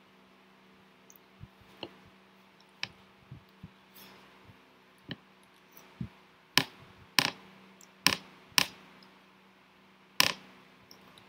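About a dozen irregular sharp clicks and knocks close to the microphone, the loudest bunched from about six to nine seconds in and one near the end, over a faint steady electrical hum.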